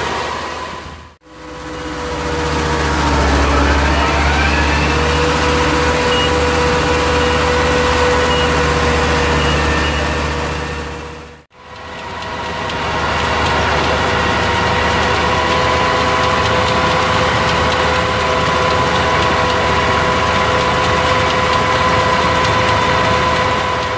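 Same Tiger 100 tractor's turbocharged five-cylinder diesel running steadily under load while driving a Feraboli Extreme 265 round baler through its PTO shaft. A steady whine sits over the engine, and a rising whine comes about three seconds in. The sound drops out briefly twice.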